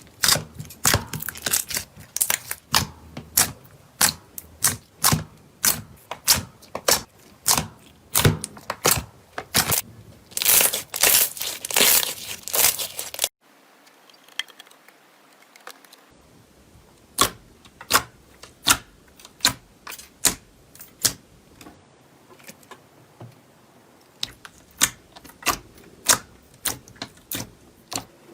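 Slime being pressed and stretched by hand, giving a run of sharp sticky clicks and pops about two or three a second, with longer crackling stretches. The sound stops abruptly about halfway through, then softer clicks resume.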